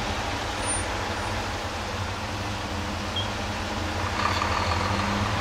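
Steady road traffic: cars driving past, with continuous engine and tyre noise.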